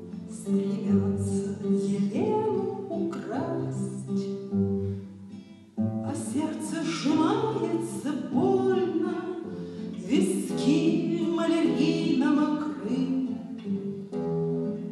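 A woman singing a Russian-language bard song while accompanying herself on a classical guitar. There is a short break in the sound a little before six seconds in.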